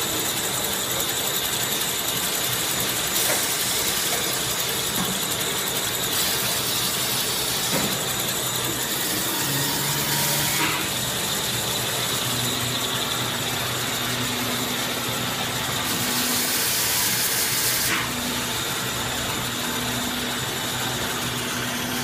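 Automatic toilet paper production line running: a steady mechanical clatter of gears and rollers with a constant high whine. Several bursts of hiss lasting a second or two.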